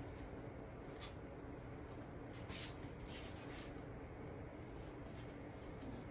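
Quiet room tone: a low steady hum with a few faint, soft rustles.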